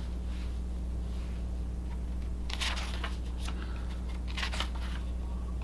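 Pages of a paper game instruction booklet being turned and handled, a few soft rustles over a steady low electrical hum.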